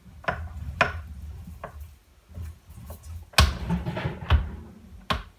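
Small metal lathe's carriage and milling attachment being moved by hand: a low rumble with several sharp metal clicks and knocks, the loudest two about three and a half and four and a half seconds in.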